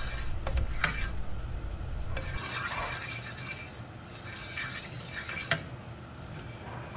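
A spoon stirring sugar and water in a pan to make sugar syrup, scraping around the pan with a few sharp clinks against its side, the loudest about five and a half seconds in.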